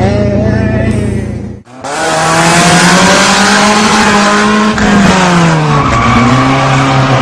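Car engine running, heard from inside the cabin. About two seconds in the sound cuts to the engine revving hard with tyres squealing as the car is thrown around in stunt skids. The pitch climbs, drops a little past the middle, then climbs again near the end.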